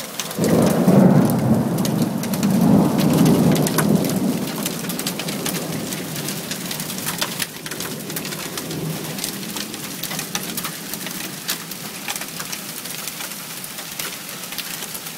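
Thunder rumbles loudly from about half a second in, swells again around three seconds and fades over the next few seconds. Steady rain with many sharp drop taps runs throughout.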